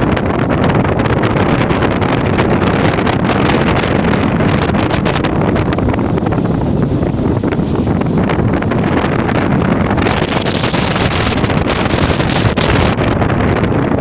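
Sea waves washing ashore in a steady, loud rush, with wind buffeting the microphone.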